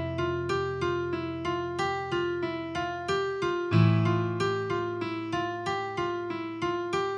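Piano music from a film score: a repeating figure of single notes, about two a second, over a deep held bass note that is struck again about four seconds in.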